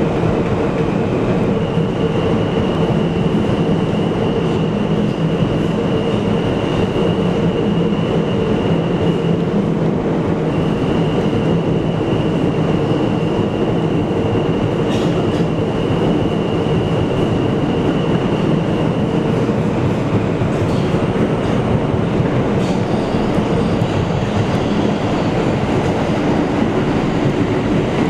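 New York City subway Q train running through a tunnel, heard from inside the front car: a steady rumble and rail noise. Over it runs a high, steady whine that breaks off briefly about ten seconds in and stops near twenty seconds, with a few faint clicks afterwards.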